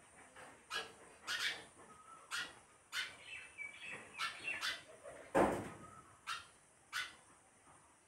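Sparrow giving a steady series of short, sharp chirps, about two a second, with one louder, fuller chirp near the middle.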